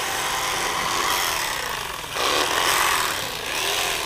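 Corded electric fillet knife running, its blades buzzing as they saw a blue catfish fillet off the rib cage, getting louder for a moment about two seconds in.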